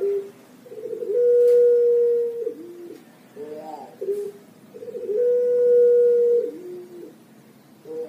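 Puter (Barbary dove) cooing its long call twice: each coo opens with a quick trembling stutter, swells into one long held note and drops to a short lower note at the end, with short rising notes between the two coos.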